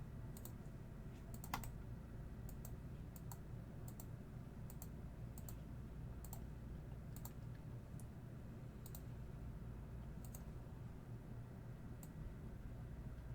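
Faint, irregular computer keyboard clicks, one every half second to a second, with a sharper click about a second and a half in, over a low steady hum.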